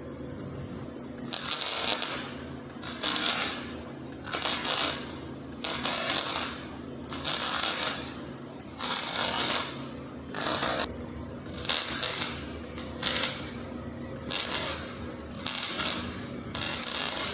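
MIG welder arc crackling and sputtering in short bursts, about a dozen trigger pulls of roughly a second each with brief pauses between, as a bead is stitch-welded. A low steady hum runs underneath.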